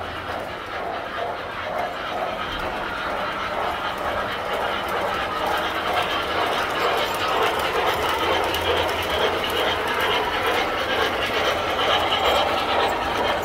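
Tinplate model trains running on the layout: a steady whirring rumble of motors and wheels on the track with fine clicking, growing gradually louder.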